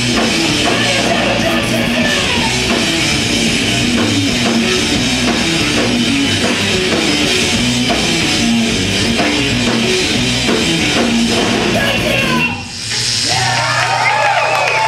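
Progressive metal band playing live: distorted electric guitars, bass and drum kit in a dense, driving passage. About twelve and a half seconds in the full band cuts off, and ringing tones that slide up and down in pitch follow.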